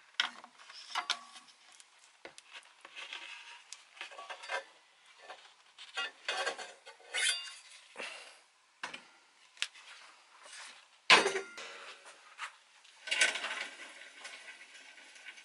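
Steel rods and weathervane parts being handled on a workbench: scattered light metal clinks, taps and scrapes, with one sharper knock about eleven seconds in and a short rustle a little after.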